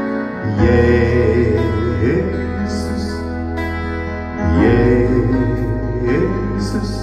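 Man singing a worship song to his own electronic keyboard accompaniment: sustained chords under the voice, with a deep bass note that shifts about half a second in and again a little past halfway.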